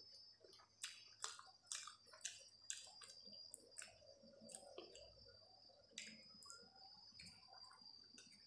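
Quiet eating sounds: soft wet clicks and smacks of chewing, with fingers mashing egg curry and rice on a steel plate. A faint steady high whine runs underneath.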